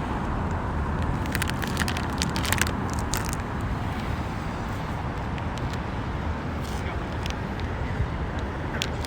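Steady outdoor street noise with the low rumble of road traffic, broken by scattered sharp crackles, a cluster of them about one to three seconds in.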